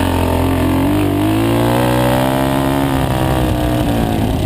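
Dirt bike engine running hard under throttle, heard close up from the bike itself. Its pitch climbs about a second in, holds, then drops back near the end.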